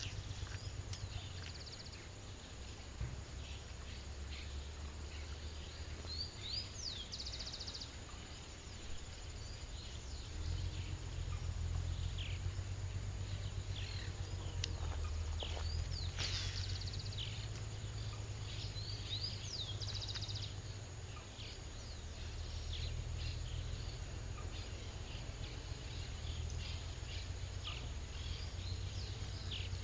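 Many short bird chirps and calls, scattered and overlapping, over a low, uneven rumble.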